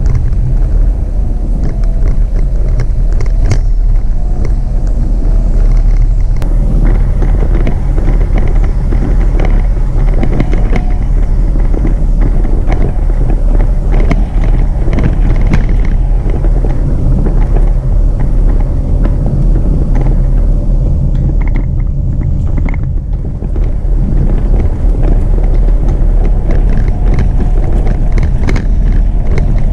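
Jeep Renegade driving on a dirt road: a steady rumble of engine and tyres, with frequent short knocks and rattles from bumps in the road.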